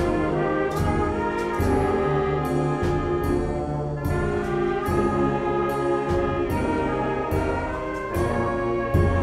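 Concert band playing: trumpets and clarinets over low brass in sustained chords, with a sharp percussion strike recurring a little under once a second.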